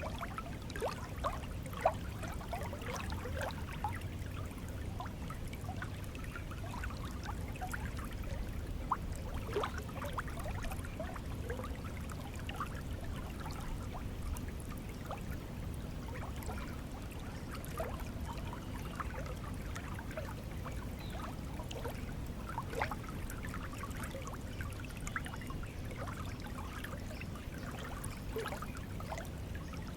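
Stream water flowing steadily, trickling with many small gurgles and plops scattered throughout.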